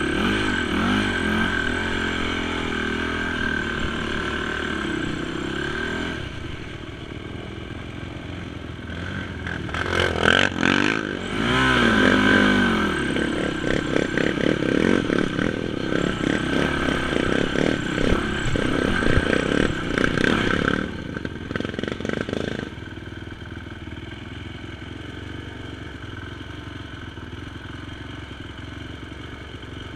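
Honda TRX450 quad's single-cylinder four-stroke engine running on the trail, heard from on board, revving up and down with rattling from the machine. It is louder through the middle and drops to a quieter, steadier run near the end.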